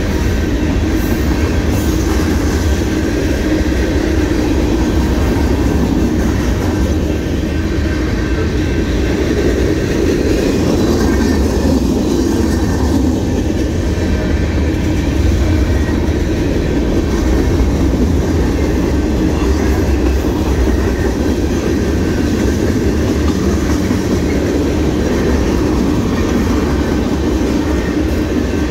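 Freight cars of a mixed freight train rolling past close by: a steady, loud rumble of steel wheels on the rails.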